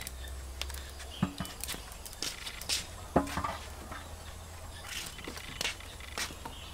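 A monkey's hands and feet scrabbling on a clay cooking pot and wooden boards: scattered sharp taps and a couple of louder knocks, then short scratchy rustles as it jumps down and moves across the planks.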